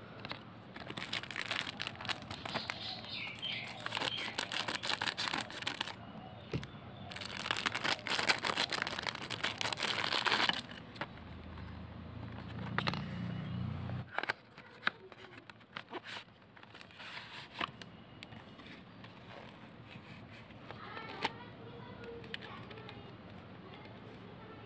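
Packaging of a boxed watercolour paint set being unwrapped and opened by hand: dense crinkling and tearing of plastic wrap and cardboard for about ten seconds. A low hum follows for about three seconds, then scattered light taps and clicks as the box and the plastic tray are handled.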